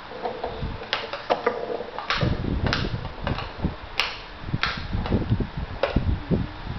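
Plastic toy golf club and toy golf bag knocking and clattering on a hard tile floor: irregular sharp clacks, about ten over several seconds, with low thumps between.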